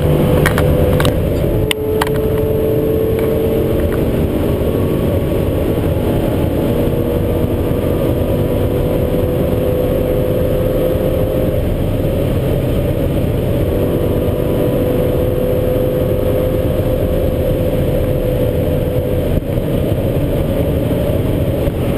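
Inside the cabin of a Lamborghini Gallardo at about 250 km/h: its V10 engine running hard under heavy wind and road noise. The engine note holds steady and climbs slowly, breaking off briefly a few times, with a few light clicks in the first couple of seconds.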